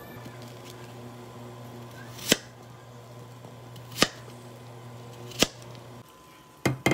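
Kitchen knife slicing through an apple and striking the cutting board three times, each a sharp knock about a second and a half apart, over a low steady hum. Near the end come two quick knocks close together.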